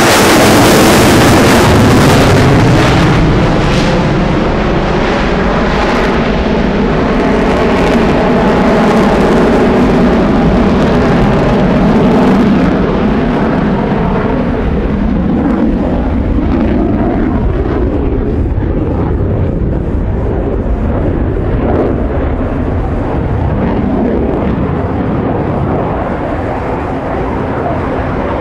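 Eurofighter Typhoon's twin EJ200 turbofans roaring in a display pass. The jet noise is loudest and hissiest at first, then grows duller and fades slowly after about 13 seconds as the aircraft draws away, with a wavering, phasing pitch through it.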